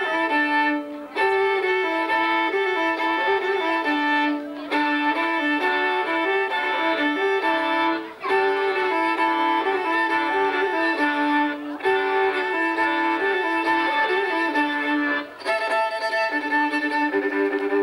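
Violin playing a melody live, in phrases of about three and a half seconds, each ending in a brief break.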